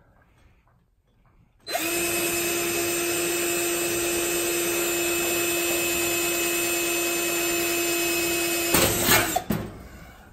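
Cordless drill starting about two seconds in and running at a steady pitch for about seven seconds as it drills through aluminium aircraft ribs and skin, with a short louder clatter near the end before it stops.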